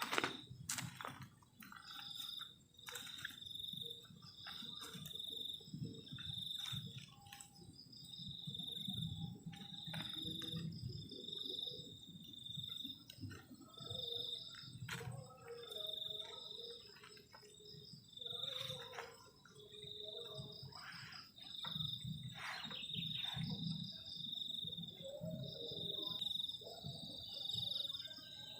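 Cricket chirping steadily, a short high chirp about once a second, with scattered clicks and knocks and a low rumble underneath.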